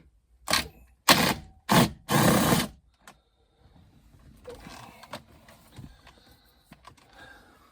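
Plastic interior trim being worked loose by hand: four loud, short scraping rasps in the first three seconds, then faint clicks and rustles of handling.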